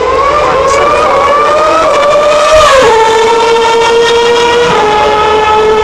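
Formula 1 car's 2.4-litre V8 engine screaming at high revs, its pitch climbing as the car accelerates, then dropping sharply about three seconds in and stepping down again near the end.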